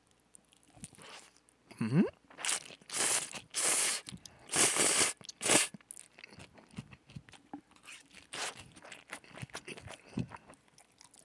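Close-miked eating sounds: a dumpling and spicy cold noodles being bitten, slurped and chewed. A run of loud slurps and bites comes from about two to six seconds in, followed by quieter wet chewing.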